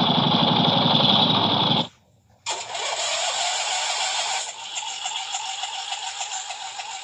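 2006 Huskee lawn tractor's engine running, cut off suddenly about two seconds in. After half a second of silence it is heard running again with a steady, slightly wavering whine, which gets somewhat quieter about four and a half seconds in.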